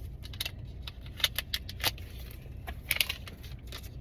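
A mascara's plastic packaging being opened by hand: a string of sharp, irregular crinkles and clicks over a steady low rumble.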